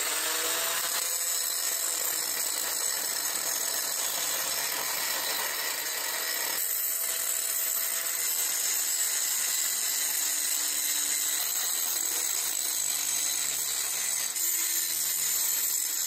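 Angle grinder grinding welds flat on square steel tube: a steady grinding whine, its motor pitch shifting a little as the disc is pressed into the metal.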